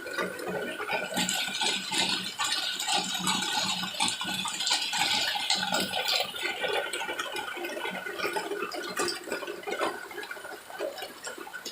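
Rain falling steadily, a dense clatter of drops striking hard surfaces mixed with running water, heaviest in the first half and easing a little near the end.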